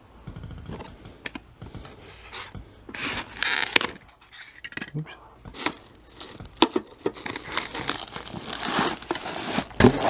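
Packaging being handled: a plastic bag crinkling and cardboard rustling in an open box, in irregular bursts with a few light knocks.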